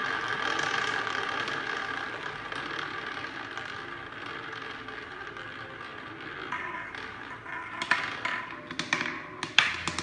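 Roulette ball rolling around the wheel's track, a steady rolling sound that slowly fades as the ball slows. From about seven seconds in it clatters: a series of sharp clicks as the ball drops, strikes the deflectors and bounces among the pocket separators.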